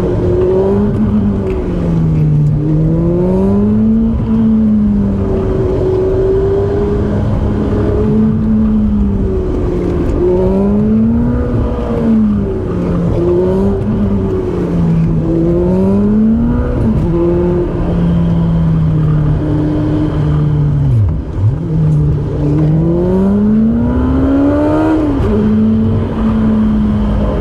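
A car engine running hard, its pitch climbing and falling again and again as it is revved and backed off, with a quick drop and recovery about two-thirds of the way through, like a gear change or lift off the throttle.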